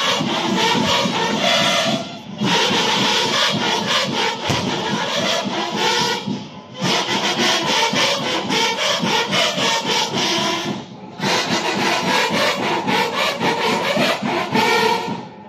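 Loud music with a fast, steady percussive beat that breaks off briefly about every four seconds.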